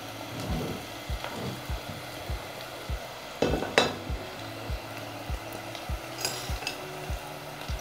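Sliced onions, garlic and curry leaves sizzling in hot coconut oil in a clay pot. There is a short clatter about three and a half seconds in and a few light clinks a little before the end.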